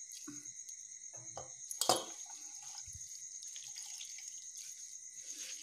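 Water squeezed by hand from boiled urad bean leaves, dripping and spattering into a steel plate in a few small splashes, the loudest about two seconds in.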